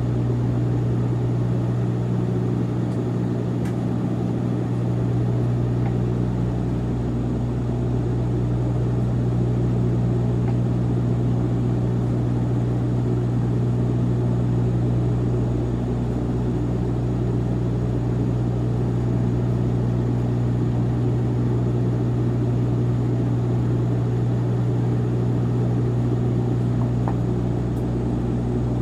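Light propeller plane's piston engine running steadily, a constant low hum that holds the same pitch throughout.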